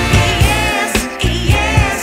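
Background music: a singing voice with vibrato over a steady beat.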